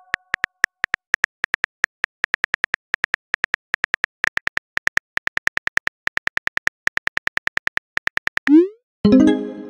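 Rapid, irregular clicks of a phone's on-screen keyboard as a text message is typed. Near the end comes a short rising whoosh as the message is sent, then a ringing chime.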